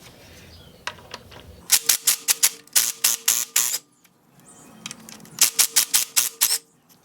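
Impact wrench hammering as it loosens the 14 mm bolts of a transfer case's centre differential carrier, in two bursts of rapid clicks, about two seconds then about one second, with a steady motor whine under them.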